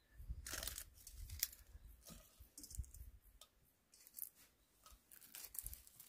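Fresh green tea leaves and mugwort rustling and crinkling softly as they are handled out of a stainless-steel strainer and dropped into a ceramic teapot, in scattered irregular bits.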